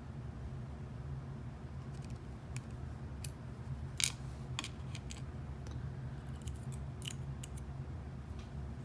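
Light, scattered metallic clicks and taps as small pins and parts are handled and picked out of a lock cylinder during disassembly, the sharpest about four seconds in, over a steady low hum.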